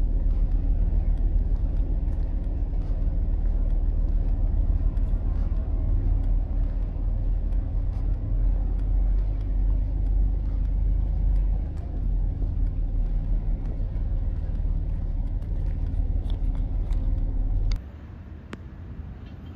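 A large engine running steadily at a constant low pitch. The sound cuts off abruptly near the end, leaving a quieter background with a couple of sharp clicks.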